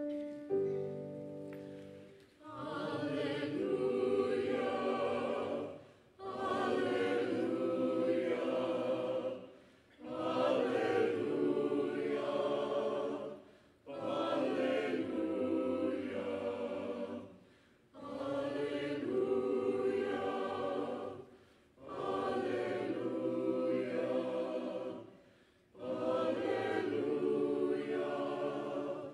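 Church choir singing in short repeated phrases, seven in a row, each about three and a half seconds long with a brief pause for breath between, after a short held opening chord.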